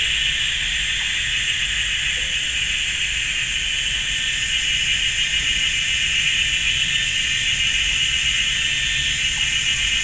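Chorus of cicadas calling together: a loud, steady, high buzzing that never pauses, sitting in two high-pitched bands.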